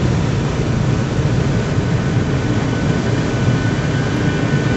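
Steady low rumble of a car driving, heard from inside the cabin: engine and tyres running on a snow-covered road.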